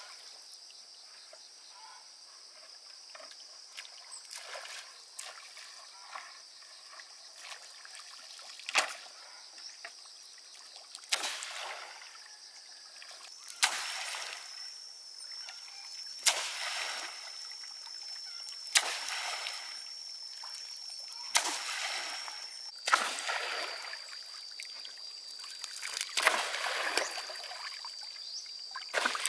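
A long bamboo pole slapped down hard on the lake surface again and again, about every two and a half seconds, each smack followed by a splash of falling spray. This is beating the water to drive fish into a net.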